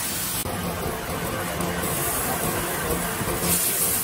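Egg and noodles sizzling on a hot iron sizzling plate: a steady hiss that gets louder near the end.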